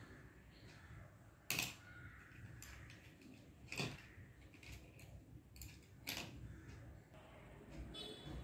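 Faint room tone broken by three sharp clicks a little over two seconds apart, with a few fainter ticks between them and a brief high chirp near the end.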